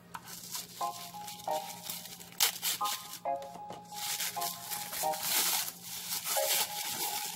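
Tissue paper and a clear plastic bag crinkling and rustling as gloved hands unwrap a small cardboard model-car box, with irregular bursts of rustle, over soft background music of short plinking notes.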